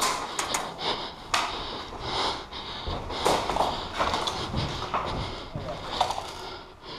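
Heavy, rushed breathing and rustling movement noise of an airsoft player on the move, in uneven swells every half second or so, with a few sharp clicks near the start.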